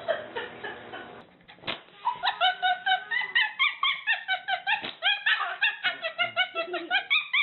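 A pet animal giving a rapid string of short, high-pitched calls, about five a second, starting about two seconds in after a brief lull and a single click.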